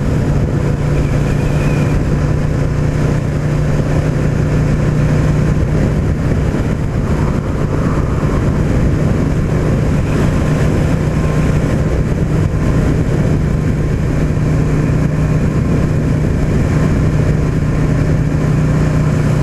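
Yamaha Drag Star 650's air-cooled V-twin engine running steadily at highway cruising speed, a constant low hum under heavy wind and road noise.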